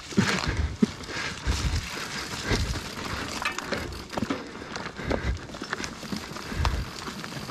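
Mountain bike rolling over a dirt forest trail littered with twigs and wood chips: tyres crunching over the debris, with scattered clicks and rattles from the bike and a few low thumps from bumps.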